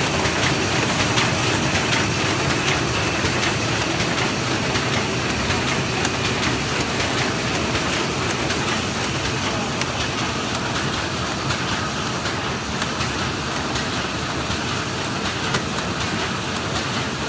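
Servo-driven paper shopping bag making machine with handle unit running in production: a steady, dense mechanical clatter with rapid fine ticking.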